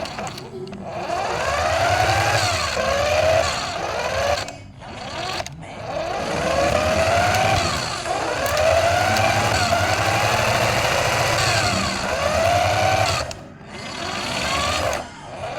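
Small electric motor of a radio-controlled toy car whining, its pitch rising and falling over and over as the car speeds up and slows, with a low buzz under it. The whine breaks off briefly a few times, around the middle and again near the end.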